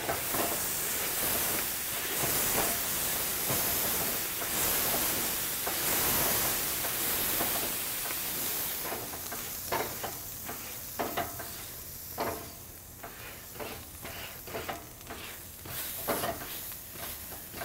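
A water-soaked Grill Rescue scrubber pad pushed across a hot grill grate, the water hissing and sizzling into steam as it lifts off the baked-on crud. A loud, steady hiss for the first half gives way to a quieter sizzle with scattered crackles and pops.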